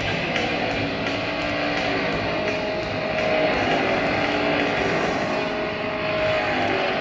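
Rock music with a steady beat, mixed with the running engines of auto-race motorcycles.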